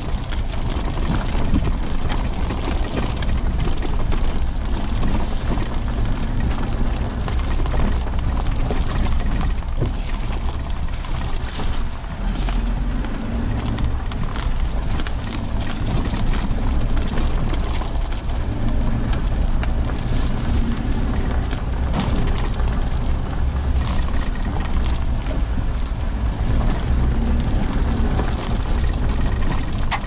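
Suzuki Jimny Sierra driving slowly on a rough dirt road: a steady low engine and tyre rumble with scattered knocks and clicks from the bumps, and brief high squeaks now and then.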